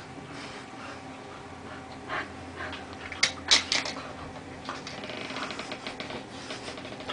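A golden retriever puppy and a Lhasa Apso play-wrestling: scuffling, with a few short sharp sounds about three seconds in, then a rapid patter of clicks.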